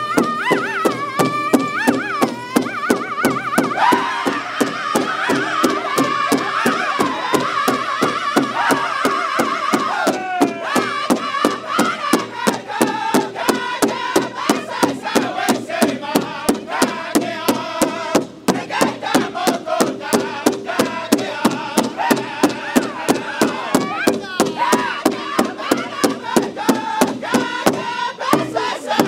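Powwow drum group singing: several men chanting together in high voices over a large shared bass drum, struck by all of them at once in a steady, even beat.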